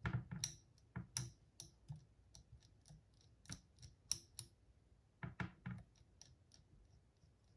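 Sharp clicks and light taps of small parts being handled: a washer and the top part of a reel spindle being fitted back onto an Akai GX9 cassette deck's tape transport. The clicks come in a quick flurry, then two shorter clusters later on.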